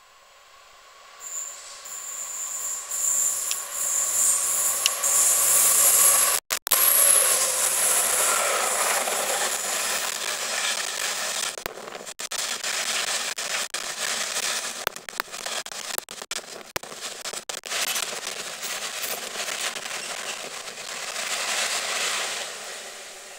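GB Railfreight Class 66 diesel locomotive, its two-stroke V12 engine running, passing at speed with a freight train of open box wagons. The sound builds with a thin high whine, is loudest as the locomotive goes by, then the wagons rumble and clatter over the rail joints, fading near the end.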